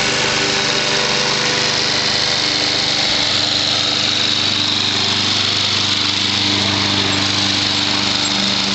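Walk-behind gasoline rotary lawn mower running steadily while being pushed across grass.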